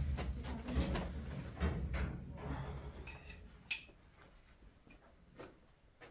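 Irregular knocks and clatter of objects being handled over a low rumble, then a brief high ringing note and a sharp click about three seconds in, after which it goes quiet.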